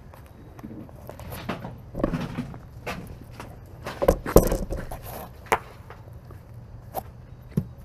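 Kubota KX018 mini excavator's diesel engine running steadily under irregular knocks and clatters of rock, as riprap stones are handled by the bucket; the loudest clatter comes about four seconds in.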